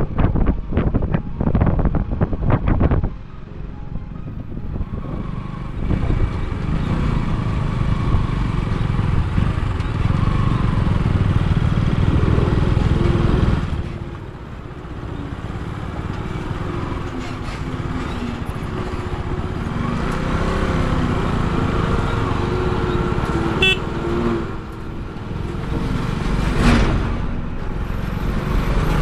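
A car driving up a rough, broken mountain road: steady engine and road rumble with wind hiss, and a quick run of jolting knocks in the first three seconds.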